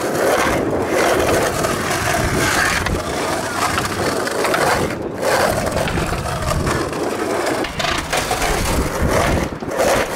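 Skateboard wheels rolling over rough, cracked pavement, a continuous gritty rumble with a brief break about five seconds in.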